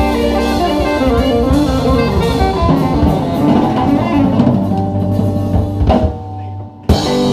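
Live band playing an instrumental passage of a blues-rock song, electric guitar over drum kit. About six seconds in the band stops short, leaving a quieter held low note, then comes back in with a loud hit just before the end.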